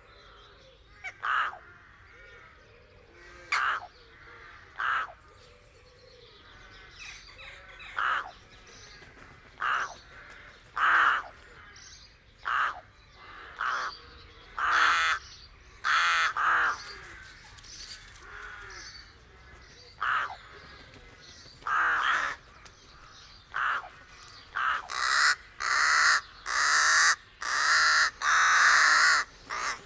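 Rooks cawing at a rookery: harsh caws every second or two, with soft muttering calls between them. In the last few seconds the caws come thick and fast and overlap.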